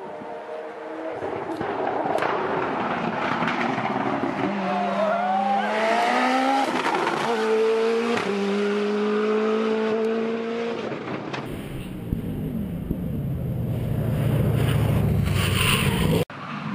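A Ford RS200 race car's engine revving hard as it accelerates past, its pitch dropping at each gear change. About two-thirds of the way in the sound cuts abruptly to a steady rumble mixed with a windy rushing noise.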